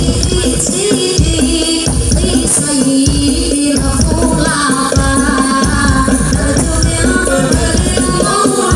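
Live sholawat music: a woman's lead voice sung over hand-drum percussion with jingles, and a crowd of women singing along.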